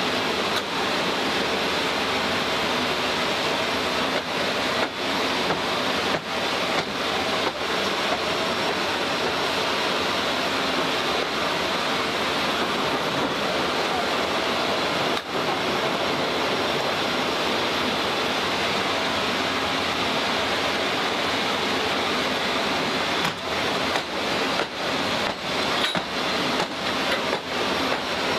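Steady, loud, even roar of running machinery on an airfield ramp, with a few brief dips in level.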